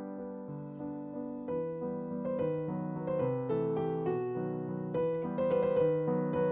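Background piano music, a gentle melody of single struck notes that livens up about a second and a half in.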